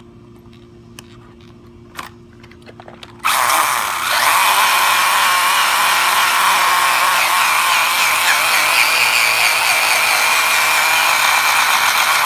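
Electric RC buggy held down by hand at full throttle in a burnout: its motor and gears give a loud, steady whine while the tyres spin on concrete. It starts suddenly about three seconds in and cuts off sharply near the end, after a few light clicks of the car being handled.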